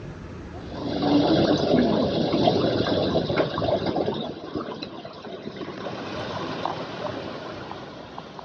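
Water running and splashing. It swells about a second in and eases off toward the end.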